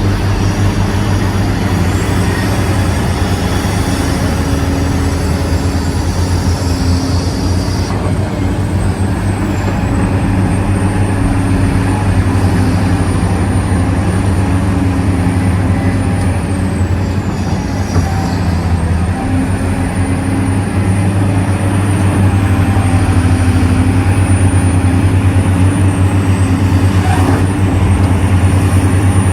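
Heavy diesel mining machinery, large Caterpillar excavators and haul trucks, running steadily with a deep engine drone. A thin high whine dips in pitch now and then, and the machines get a little louder in the last third.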